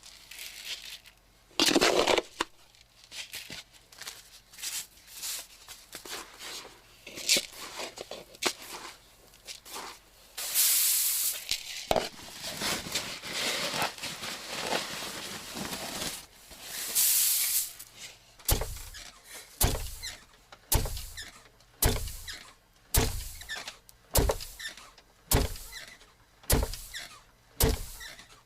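Wooden treadle foot mill (디딜방아) at work, its beam creaking and squealing on the pivot. About two-thirds in, the pestle starts thudding down into the mortar in a steady beat of roughly one stroke a second.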